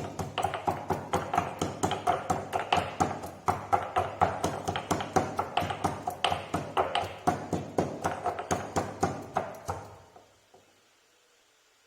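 Pestle pounding in a mortar, fast and even at about three to four strokes a second, each stroke with a short ring, as fresh ginger, tulsi leaves, cloves and black peppercorns are crushed to a paste. The pounding stops about ten seconds in.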